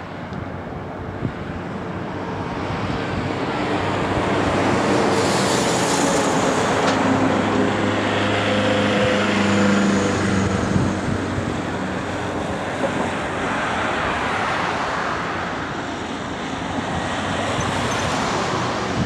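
Airbus A321 airliner's jet engines going by on landing: a rumble with a high whine that swells to a peak about five to ten seconds in, then fades, swelling again briefly near the end. There is wind on the microphone.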